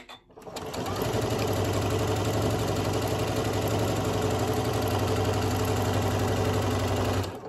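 Janome M7 sewing machine stitching a seam through quilting cotton patches: the motor and needle come up to speed about half a second in, run steadily, and stop suddenly near the end.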